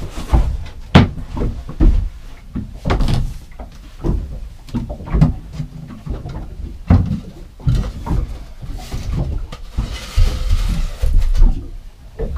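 Wooden floor hatch panels in a boat's cabin being lifted and handled: a string of knocks and thumps, with a scraping rustle about ten seconds in.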